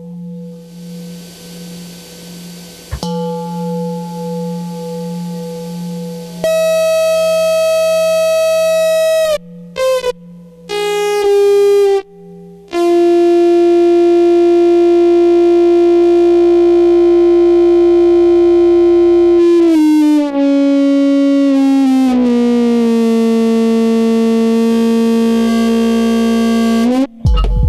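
Modular synthesizer music. A pulsing low drone with a wavering higher tone opens, then loud sustained synth notes step down in pitch with a few short breaks. A long held note slides lower around two-thirds of the way through, and rapid low rhythmic pulses break in just before the end.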